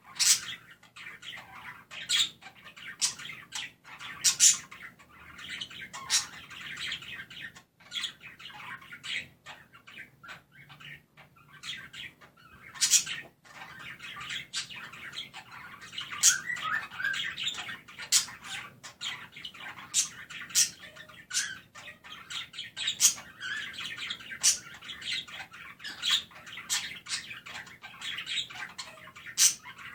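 Budgerigars chirping and warbling in a continuous chatter, broken every second or so by short, sharp high calls.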